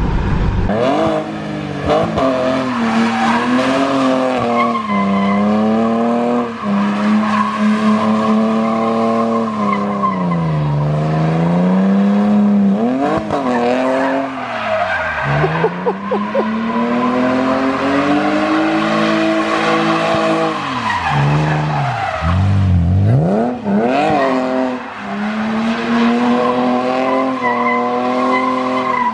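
BMW straight-six car engine revving hard under load, its pitch climbing and falling repeatedly, with a few sharp drops and climbs as the throttle is lifted and reapplied.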